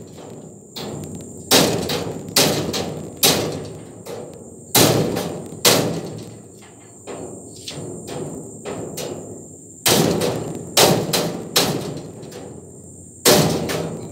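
Irregular metal bangs and clanks, about a dozen, each dying away briefly, as a steel part is knocked and forced into a welded steel-mesh pig pen frame. A steady high insect drone, likely crickets, runs underneath.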